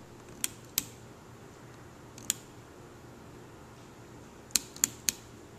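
Sharp, short clicks of a small push-button being pressed: two near the start, one about two seconds in, and three in quick succession near the end. A faint steady low hum runs underneath.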